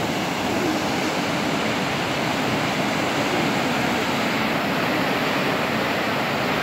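Steady rush of whitewater from a river rapid's standing wave.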